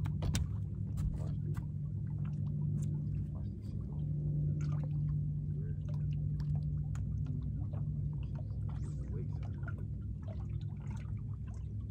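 Water lapping and splashing against a fishing boat's hull, heard as many small irregular clicks and splashes over a steady low hum.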